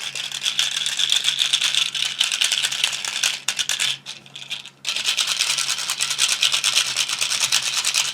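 Small plastic roller fidget toy being worked by hand, giving a fast rattling clatter of many tiny clicks. It comes in two long runs with a short pause about four seconds in.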